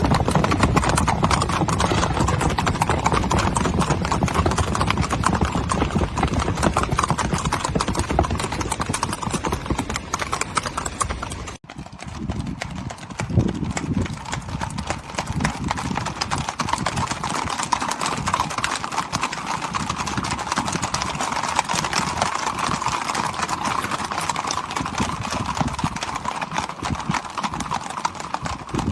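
A herd of Icelandic horses crossing a bridge, many hooves clattering on the decking in a dense, continuous patter. About a third of the way through it breaks off for an instant and resumes with less low rumble.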